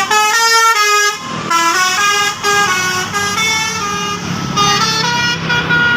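Bus telolet (basuri) musical air horn playing a sholawat melody: a quick run of notes stepping up and down, with a short break about a second in, over the low rumble of the bus.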